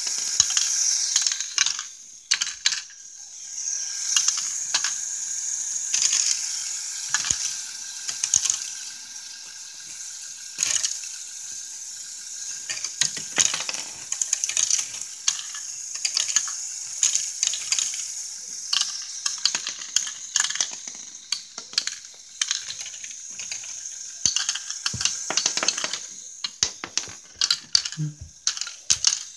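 Lego Technic bucket wheel excavator model running: its motors and plastic gear trains give a steady high whine under constant irregular clicking and rattling of plastic parts.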